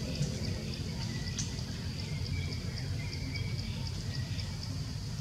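Outdoor ambience in leaf-litter woodland: a steady low rumbling noise with a faint, regular high ticking about two or three times a second, like an insect calling.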